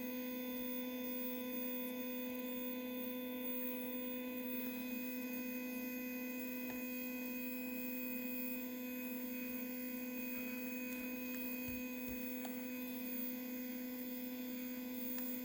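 Stepper motor of a GoTo telescope mount drive slewing at a constant speed, giving a steady high whine with overtones.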